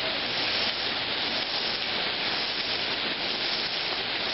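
Heavy monsoon rain pouring down onto a road and standing water: a steady, even hiss of downpour.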